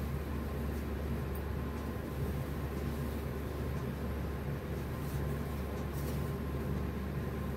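Steady low background hum and rumble, with a faint brief rustle of silk fabric being handled about six seconds in.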